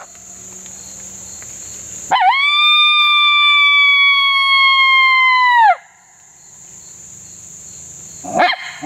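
Coyote howl blown on a hand-held MFK Competition Howler mouth call: one long howl of about three and a half seconds that swoops up at the start, holds steady and drops off at the end, then another howl rising in near the end. It is a locator howl meant to get the coyotes to answer. A steady high insect buzz fills the gaps.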